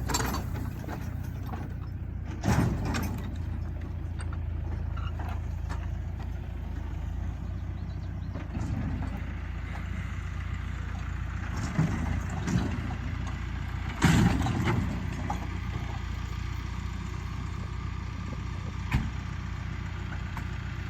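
Tractor engine running steadily at a low hum, with a few short mechanical clunks, the loudest about fourteen seconds in.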